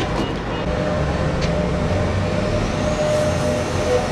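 Heavy diesel engine of a large mining dump truck running, a steady low rumble.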